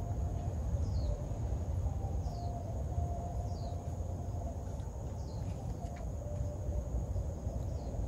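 Rural outdoor ambience: a bird repeats a short, high, falling note every second or two over a steady high insect drone and a low rumble.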